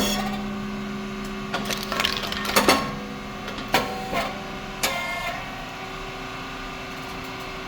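Rice cake popping machine running: a sharp pop right at the start and a string of cracks and clacks over the next five seconds as the heated moulds open and the puffed rice chips are released and pushed out, over a steady hum from the machine's motor and pump.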